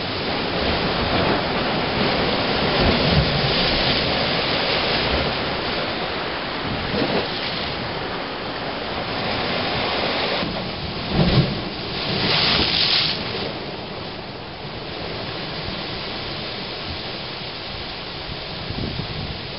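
Ocean surf surging into a blowhole in rough a'a lava rock, a continuous rush of water with repeated swells. There is a heavier crash about eleven seconds in, followed by a loud hissing rush.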